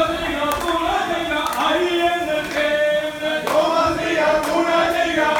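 A group of men chanting a Kerala vallamkali (boat race) song in unison, with long held notes. Sharp strikes about once a second keep the beat.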